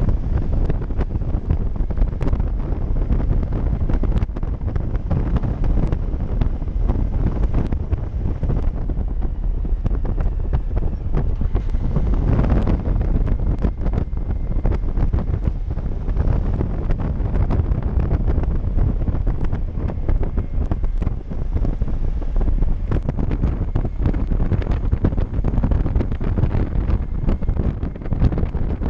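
Steady, loud wind buffeting the microphone of a camera on a motorcycle riding at road speed, with a brief louder swell about twelve seconds in.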